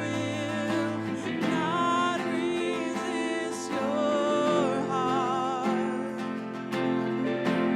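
Worship band playing a slow song led by acoustic guitar, with held chords and a melody line that wavers in pitch.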